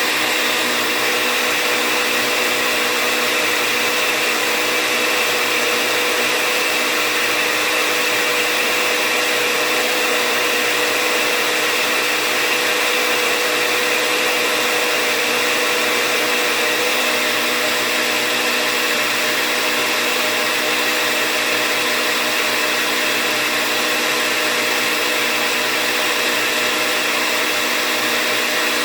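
Countertop blender running steadily on its ice-crush setting, blending an avocado and banana mixture, its motor holding an even pitch throughout.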